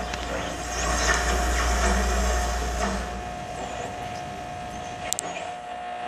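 A low, steady rumble under a faint constant high hum; the rumble dies away about four seconds in. There is a single short click near the end.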